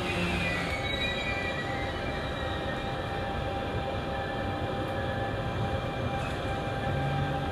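Locomotive-hauled passenger train, an E464 electric locomotive with MDVC coaches, heard from on board as it pulls slowly out of a station: a steady rumble of wheels on rail with several thin, steady high tones over it.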